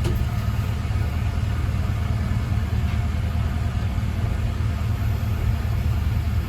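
Ex-JNR KiHa 20-series diesel railcar's engine running steadily, heard from inside the car as a low, even rumble.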